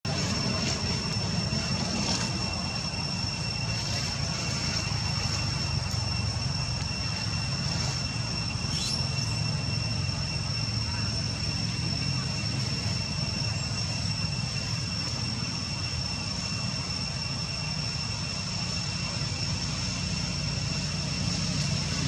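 Steady outdoor background noise: a low rumble with two steady high-pitched tones, and a brief rising chirp about nine seconds in.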